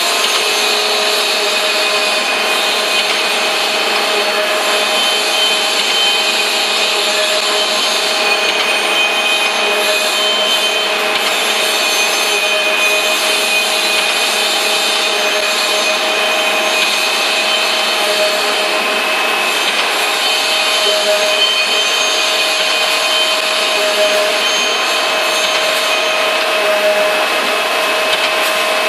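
Steady mechanical hum and hiss with a few constant tones, from the hydraulic drive of a CNC hydraulic die forging hammer running. No hammer blows are struck.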